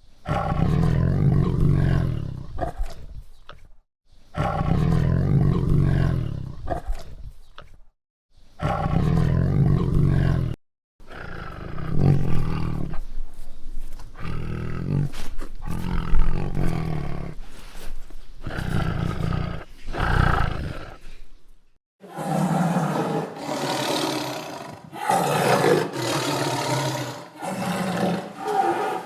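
Tiger roaring: a series of deep, loud roars, each two to four seconds long, with short silent gaps between them. From about two-thirds of the way in the roars run together with no gaps and sound rougher and harsher.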